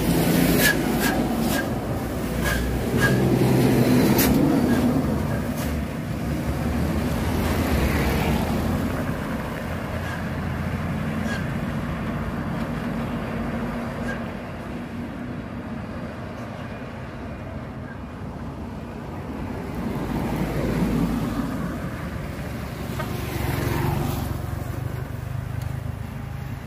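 Road traffic on a hill road: the engines of several passing vehicles swell and fade one after another, with a few sharp clicks in the first few seconds. Near the end a motorcycle with a sidecar passes close, its engine rising and falling in pitch as it goes by.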